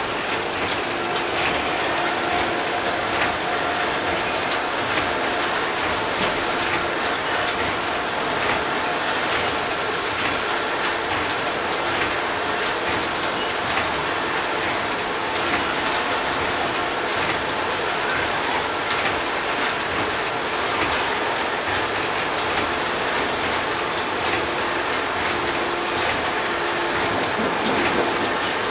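Washing-powder packaging line running: a steady mechanical clatter full of rapid clicks and knocks from the automatic form-fill-seal packer and its doser.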